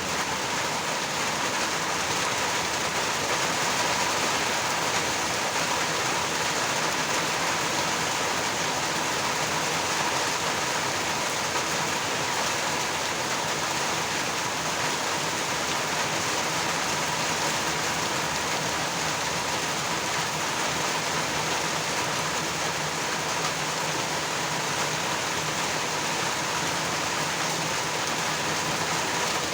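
Steady rain falling, an even hiss that holds level throughout with no thunderclap.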